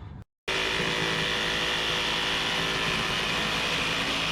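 Jigsaw with a general-purpose blade cutting through an aluminium motorhome side panel, running steadily at an even level. It starts abruptly after a brief silence just after the start.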